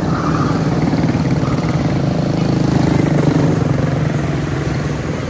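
Several quarter midget race cars with small single-cylinder Briggs & Stratton Animal engines drone together as they circle the oval. The sound swells about three seconds in as cars pass close by.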